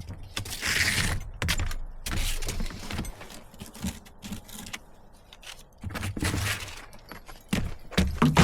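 Irregular clatter of knocks and clinks, with a short hiss about a second in and louder knocks near the end.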